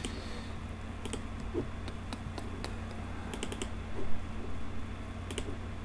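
Irregular clicks of a computer mouse and keyboard, several in quick succession a little past three seconds in, over a steady low hum.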